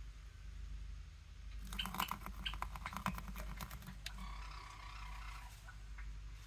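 Hands handling the painting and its woven strips: a quick run of clicks and crackles lasting about two seconds, then a short rubbing sound, over a low steady hum.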